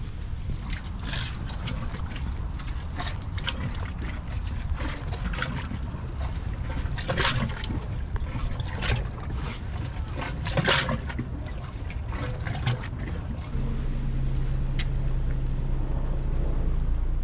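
Water lapping and dripping around moored boats in light rain, irregular small splashes and ticks over a low rumble. About two-thirds of the way through, a steady low hum starts and continues.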